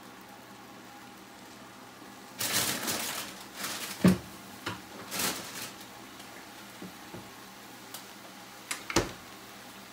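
Stir-fry cooking faintly in a wok on a gas stove, broken by scattered kitchen clatter: a short rustling burst, then a few sharp clicks and knocks, the loudest about four seconds in and another near the end.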